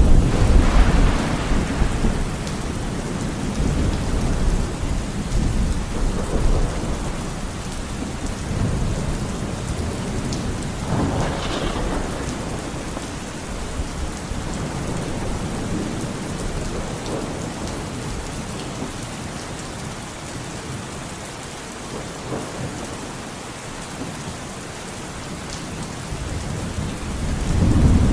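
Steady rain with rolling thunder. A heavy rumble at the start dies away over a couple of seconds, another rumbles about eleven seconds in, and thunder builds again near the end.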